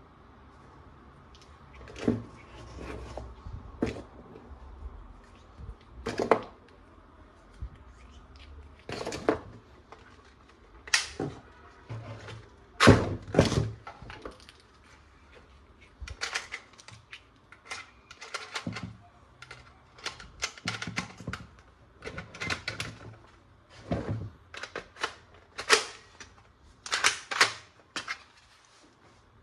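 Plastic toy guns and parts being handled and fitted together: irregular sharp clicks, snaps and knocks, a couple of dozen of them, the loudest about halfway through.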